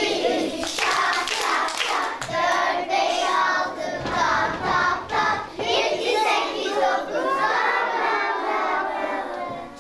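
A class of young children singing a song together in chorus for an action break, with a few hand claps.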